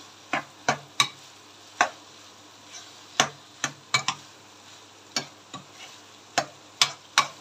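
A cooking spoon stirring frying minced meat and freshly added tomatoes in a pan, knocking sharply against the pan about a dozen times at an uneven pace, over a faint sizzle.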